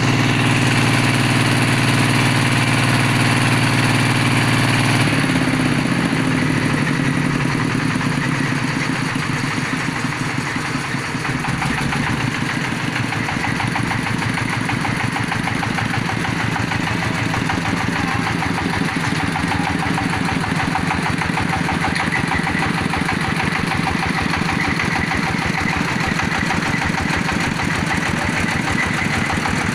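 Engine of a borehole well-drilling machine running steadily; about five seconds in its sound changes and it settles into a rapid, even pulse.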